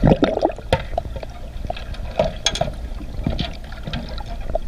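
Water bubbling and gurgling as heard underwater, with scattered short blips and a few sharp knocks, the loudest right at the start, as trainees climb out of a submerged metal-frame escape trainer.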